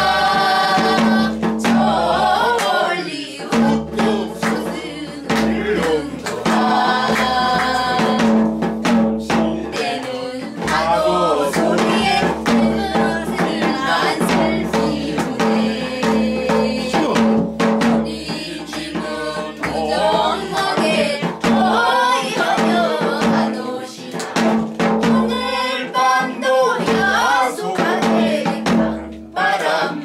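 A mixed group of men and women singing a Korean folk song together, with hand claps and taps of a stick keeping the beat.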